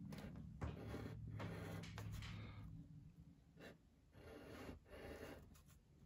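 Faint scratching of a wooden pencil on paper: a string of short, separate strokes as small thin triangles are sketched.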